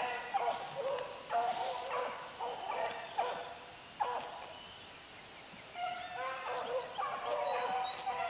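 A pack of rabbit hounds baying in several overlapping voices on a rabbit's trail, easing off for a second or two midway and picking up again.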